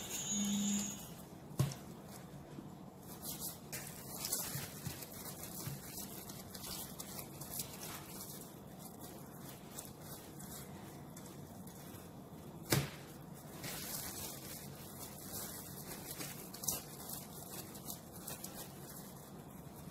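Faint handling of risen pizza dough as it is pulled apart and shaped into balls, with a few sharp knocks, the loudest about 13 seconds in.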